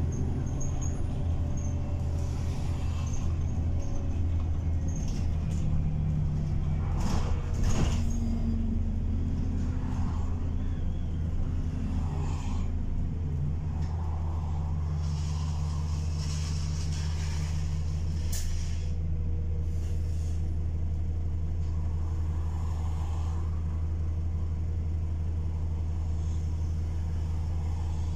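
Bus interior on the move: the engine drone and a steady low hum, with the engine note shifting about 13 seconds in. Short hisses, typical of the bus's air brakes, come about 7 seconds in and again near 18 seconds.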